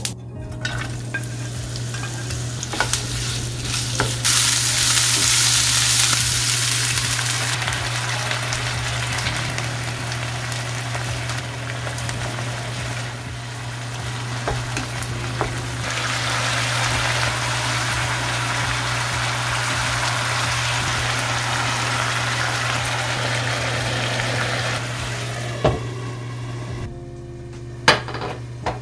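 Food frying in hot oil in a pan, sizzling steadily; the sizzle is strongest about four to seven seconds in and dies away near the end, where a couple of sharp clacks follow.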